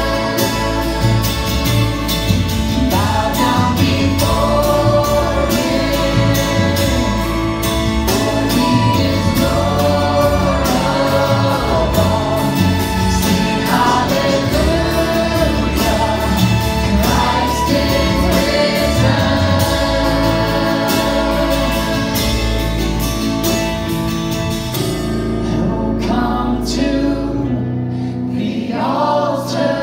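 Live worship band: a woman singing lead into a microphone over drums and guitar. About 25 seconds in the drums and cymbals drop out and the accompaniment thins.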